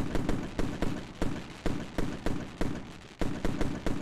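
Fireworks sound effect: a quick run of bangs and crackling pops, about three to four a second.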